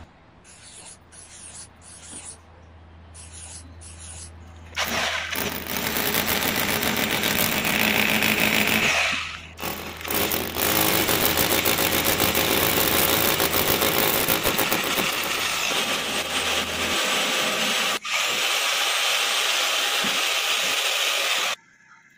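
Hammer drill with a masonry bit boring into a plastered wall, a loud steady grinding rattle. It starts about five seconds in, stops briefly around the ten-second mark, then runs again until just before the end.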